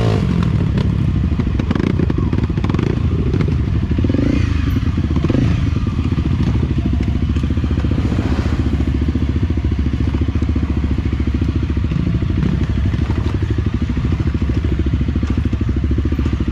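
Enduro motorcycle engine running steadily while riding a dirt trail, with occasional knocks and clatter from the bike over rough ground.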